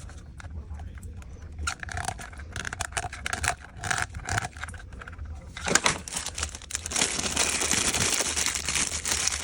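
Clicks and scrapes of plastic toilet tank parts being handled, then about six seconds in a steady hiss begins and holds.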